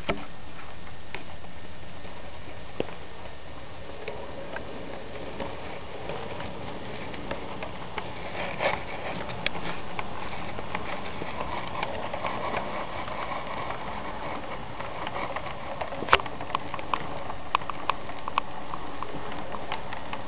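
HO scale model train running on the track, with a Southern SW9 switcher model pulling boxcars: a steady motor hum and wheel rattle with irregular sharp clicks from wheels and couplers, the loudest click about 16 seconds in.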